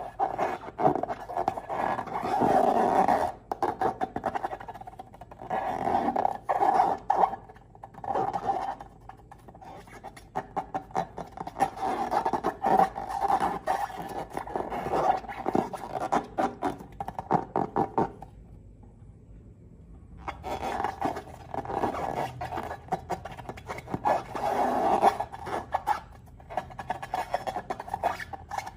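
Slime being squished and stretched by hand: sticky squelching with dense runs of small crackling clicks, coming in bursts, with a short pause about two-thirds of the way through.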